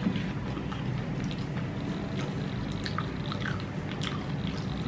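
A man chewing a mouthful of chole (spiced chickpea curry), with small clicks and scrapes of a metal spoon in the bowl, over a steady low hum.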